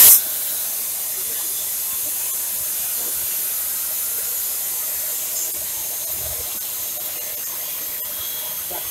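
1 kg drum coffee roaster running while roasted beans pour from the drum into its cooling tray and are stirred: a steady hiss of moving air and tumbling beans.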